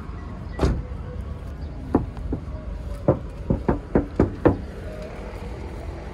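Sharp knocks: one about half a second in, another about two seconds in, then a quick run of six at about four a second, over a steady low rumble.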